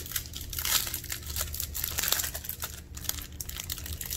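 Thin clear plastic wrapper crinkling and tearing as hands peel it off a stack of trading cards, a run of quick, irregular crackles.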